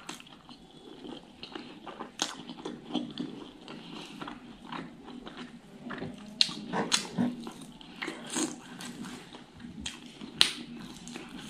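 Close-miked chewing and eating mouth sounds: wet smacks and sharp clicks as a mouthful of rice and fatty pork is chewed.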